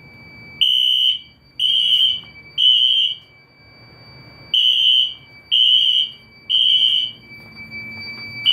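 Fire alarm sounder beeping a high, piercing tone in groups of three with a longer pause between groups: the temporal-three alarm pattern. The detector's test function has set it off. A faint steady high tone sounds underneath.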